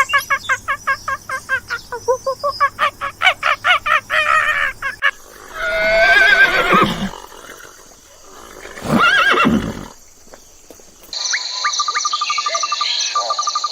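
A run of different animal calls: about five seconds of a rapid pulsing call, then two shorter wavering calls, then from about eleven seconds a steady high buzz with repeated croaking.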